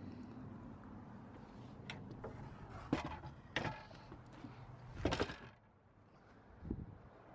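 Equipment being handled: several short knocks and a brief clatter of hard objects, then a dull thud near the end.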